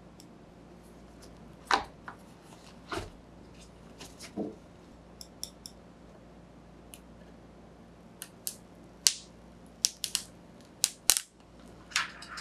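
Fine metal tweezers clicking and tapping against the plastic of an LED mask, with crackles as the clear protective film is lifted off its visor. The clicks come irregularly, louder and closer together in the last few seconds.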